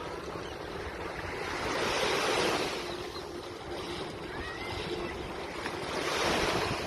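Sea waves breaking and washing up the beach, two swells of surf about four seconds apart, over a steady low rumble of wind on the microphone.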